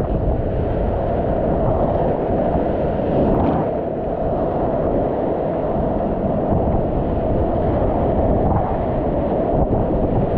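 Whitewater rapids rushing steadily around a kayak, heard from a camera on the boat, with wind buffeting the microphone.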